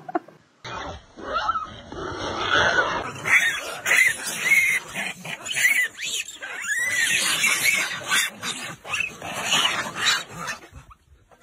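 A troop of macaques squealing and screeching, many short rising-and-falling calls overlapping one another.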